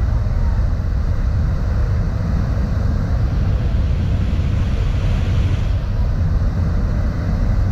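Car ferry's propellers churning up the water as the ship pulls away from its berth: a loud, steady rumble with a hiss of foaming water.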